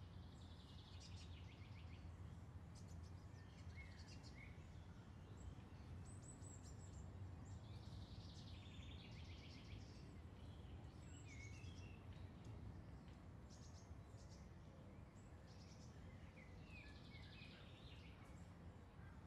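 Faint outdoor ambience: small birds chirping and twittering in short spells every few seconds over a steady low rumble.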